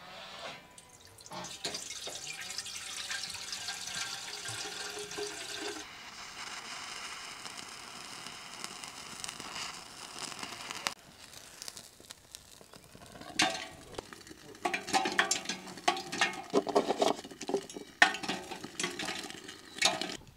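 Water poured from a clay jug into a stainless-steel samovar, a steady splashing rush that rises slightly in pitch as the urn fills. From about two-thirds of the way in, a run of sharp clicks and knocks follows as the fire in the samovar is lit.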